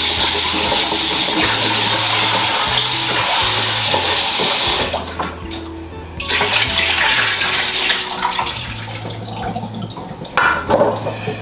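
Kitchen tap water running into a stainless steel bowl at the sink as coconut pieces are rinsed. The flow stops about five seconds in, runs again briefly, and a sharp metal clank of the bowl comes near the end.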